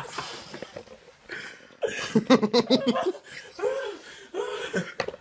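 Men laughing hard, with a run of quick ha-ha pulses about two seconds in, and more laughter after it.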